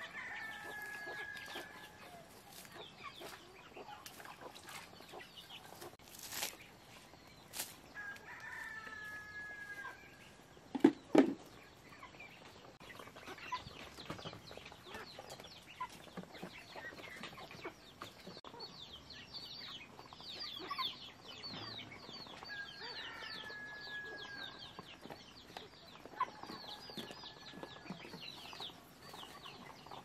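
Farmyard chickens: a rooster crows several times, each crow about two seconds long, over clucking and many short high chirps. Two sharp knocks about eleven seconds in are the loudest sounds.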